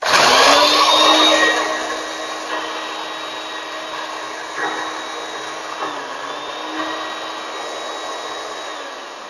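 Small electric mixer-grinder running, grinding roasted dry coconut in its dry-grinding jar: a second spin because the coconut is not yet fine enough. The motor starts abruptly, loudest for the first second or so, then runs with a steady whine and dies away near the end.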